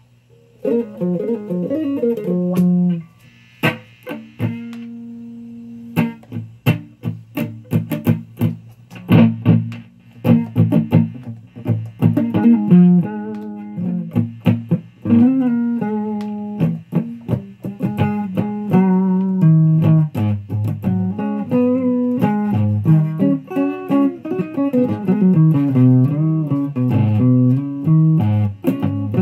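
Electric guitar played through a Fuzz Face fuzz pedal running on a nearly dead battery: a run of picked notes with a held note about four seconds in, and bent, wavering notes near the end.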